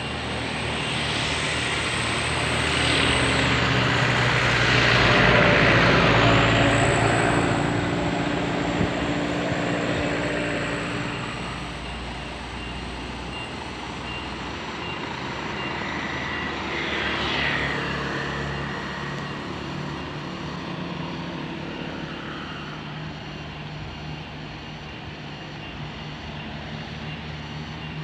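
A large coach bus's diesel engine running as the bus drives past on the road, growing loudest about five seconds in and then slowly fading, with other road traffic behind it.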